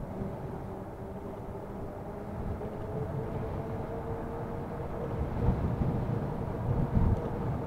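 Ariel Rider Kepler e-bike under way, its electric motor giving a steady whine that rises slowly in pitch as the bike speeds up. Low rumbling wind and road noise underneath gusts louder in the later seconds.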